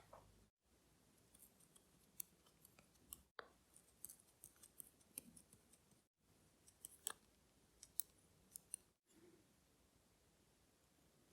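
Faint clicks and small metallic ticks of watchmaker's tools on tiny metal watch parts while a caliber 4694 movement is taken apart, with several sharper clicks standing out.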